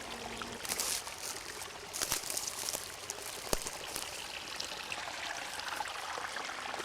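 Running water trickling and splashing steadily, with a few brief sharp clicks or drips.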